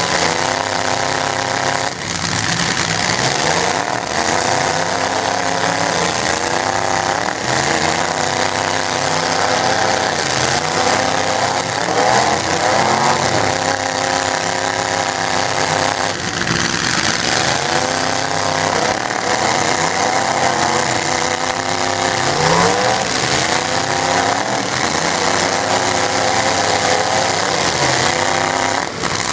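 Stock pickup trucks' engines in a demolition derby revving hard as they push against each other. The pitch rises and falls again and again, every second or two.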